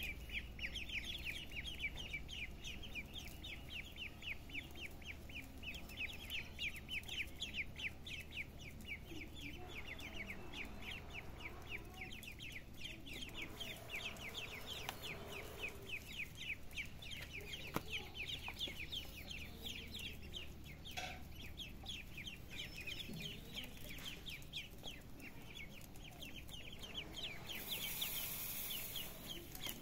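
Ducklings peeping without pause, a steady stream of rapid, high peeps from several birds overlapping.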